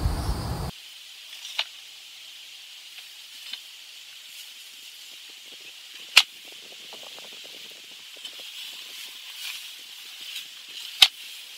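Manual clamshell post-hole digger working a hole in soil: a few sharp strikes, the loudest two about six and eleven seconds in, with faint crumbling scrapes between them. A steady high insect drone runs underneath, and a loud rumble of wind on the microphone cuts off abruptly under a second in.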